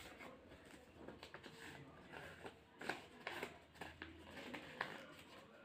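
A sheet of paper being folded and creased by hand on a wooden board: faint rustling broken by scattered light taps and scrapes, the sharpest about three seconds in.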